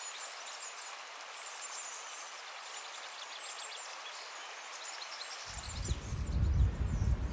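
Outdoor background noise with small birds chirping and twittering. About five and a half seconds in, a strong low, uneven rumble comes in underneath.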